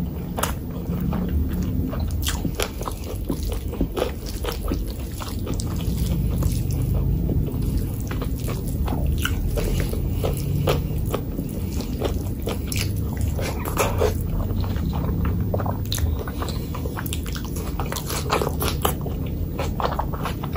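Close-miked chewing and wet mouth sounds of someone eating mutton curry with rice by hand, a steady run of many short, sticky clicks.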